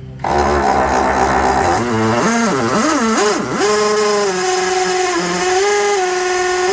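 Cordless drill running under the trigger: its motor whine wavers up and down for a couple of seconds, then holds a steady pitch until it winds down at the very end.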